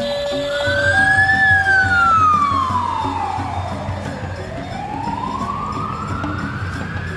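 A siren-like wailing tone that falls slowly over about three seconds, then rises again, over background music with a steady beat.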